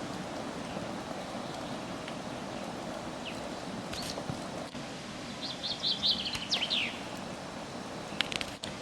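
A small bird chirping a quick run of short, high notes about halfway through, over a steady low background noise.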